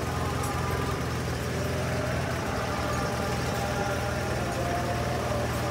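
A steady low engine hum, even in level throughout, with faint voices behind it.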